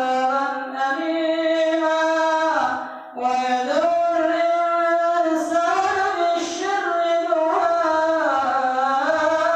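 An imam's melodic Quran recitation during prayer: a single male voice chanting in long held, gliding notes, amplified through a microphone, with a brief breath pause about three seconds in.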